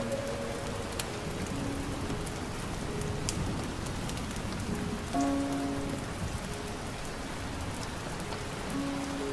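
Steady rain falling on a hard surface, with scattered drip ticks. Soft background music sounds a few quiet held notes: one about a second and a half in, one about five seconds in and one near the end.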